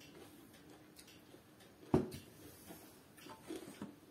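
A single sharp knock of a glass set down on a table about two seconds in, followed by a few faint small handling clicks.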